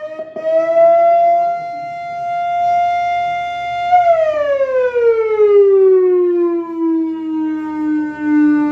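Iftar siren (hooter) sounding to signal the time to break the Ramadan fast. A single steady tone holds for about four seconds, then slides slowly down in pitch and settles on a lower steady tone.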